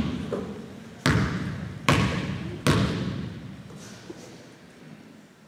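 Basketball bounced on a gym floor: three bounces in an even rhythm about 0.8 s apart, each followed by a long echo, then quiet.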